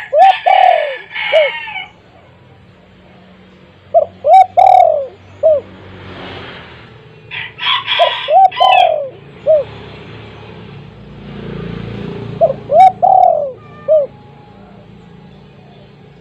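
Spotted dove (tekukur) cooing: four phrases of several short, falling coo notes, a few seconds apart.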